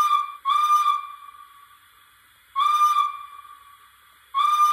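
Steam-whistle sound from the DCC sound decoder of a Rapido Hunslet 16" 0-6-0ST model locomotive, played through its small onboard speaker. It gives four short toots at one steady pitch: two close together at the start, one about two and a half seconds in and one near the end.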